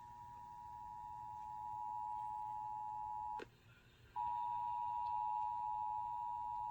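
Emergency Alert System attention signal from a broadcast radio test: a steady two-tone alert tone. It drops out for under a second a little past halfway, then resumes louder.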